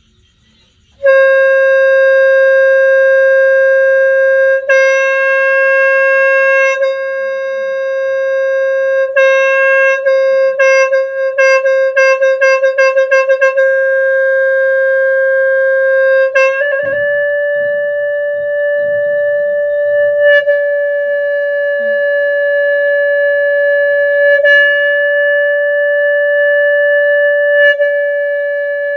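Khmer sneng, a water-buffalo horn, blown: a steady reedy note held for several seconds, broken in the middle by a run of quick repeated pulses, then stepping up to a slightly higher note about 17 seconds in that is held on with small breaks.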